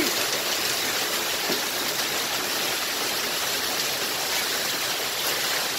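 Heavy rain mixed with hail falling in a dense, steady hiss.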